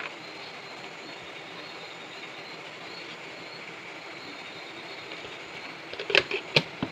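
Hot oil sizzling steadily in a wok over a gas flame as turmeric is spooned in, with a few sharp clicks about six seconds in.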